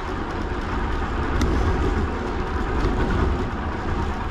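Steady wind rumble on the microphone with rolling noise from a moving bicycle, and a faint click about a second and a half in.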